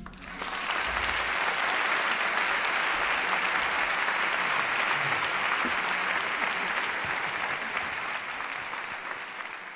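Audience applauding at the end of a live song: the clapping swells in about half a second in, holds steady, then slowly fades near the end.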